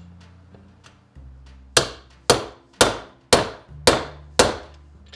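Hammer striking a steel bearing driver, driving a bearing into a heated aluminium Triumph 650 engine case half. Six sharp metallic blows, about two a second, beginning about two seconds in, each ringing briefly.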